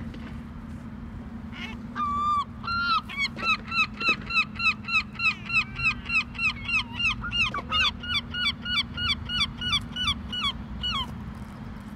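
Herring gull giving its long call: one drawn-out note about two seconds in, then a fast run of loud yelping calls, about four a second, that stops near the end.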